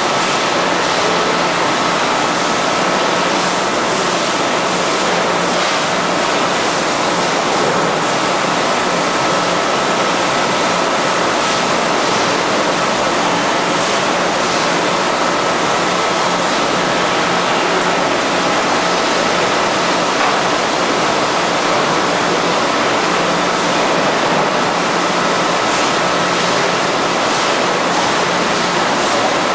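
Steady machinery noise of a 5-gallon water bottling line with its robotic loader running: a continuous rushing hiss with a thin high whine and occasional faint knocks.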